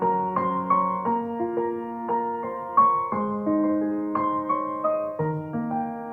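Soft background piano music, a slow melody of sustained notes with chords underneath.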